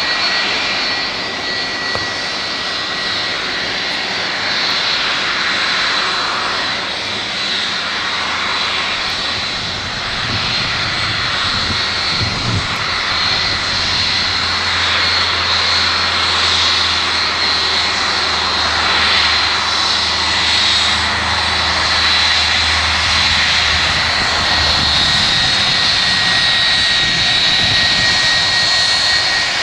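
Boeing 757-200's twin turbofan engines running at taxi power: a steady jet rush with a high whine held on two steady pitches. A deeper low rumble comes in about a third of the way through and fades out shortly before the end.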